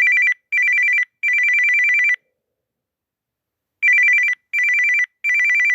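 Samsung Galaxy A32 ringtone in the style of a classic electronic telephone ring: two high tones trilling rapidly against each other in two short rings and a longer one, then a pause and the same three rings again.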